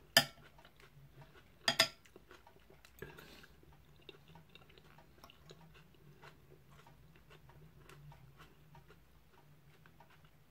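Person chewing a mouthful of vegetable soup, with two sharp clinks of cutlery against a ceramic soup bowl in the first two seconds and a softer one about three seconds in, then faint chewing and small ticks over a low steady hum.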